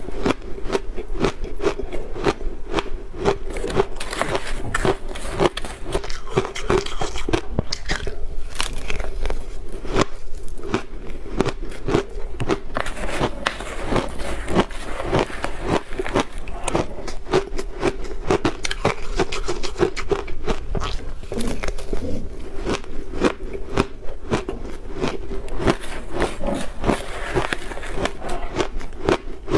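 Close-miked crunching of shaved blender ice with milk powder being bitten and chewed: dense, irregular crackling crunches throughout, mixed with a metal spoon scraping and digging through the ice in the blender jar.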